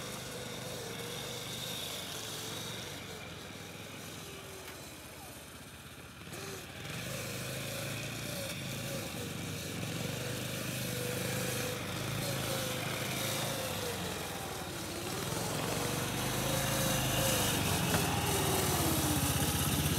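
Yamaha SRX 120 children's snowmobile running, its small engine's pitch rising and falling with the throttle. It gets louder over the last few seconds as the sled comes close.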